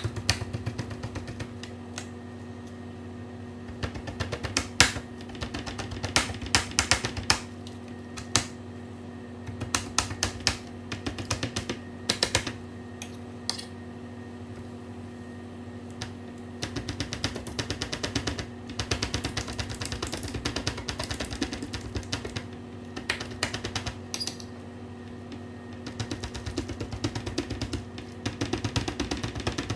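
Two metal forks rapidly pricking the skin of a slab of pork belly on a stainless steel sheet pan, sharp clicks and taps against the metal in quick clusters with short pauses, over a steady low hum. The pricking lets the skin puff and crisp in the fryer.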